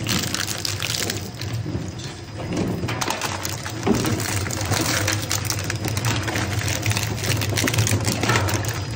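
Twin-shaft industrial shredder running, a low steady hum from its drive under a dense rapid clatter of cracking and crunching as the cutter discs chew through hard plastic and metal scrap. The crunching eases briefly about two seconds in, then picks up again.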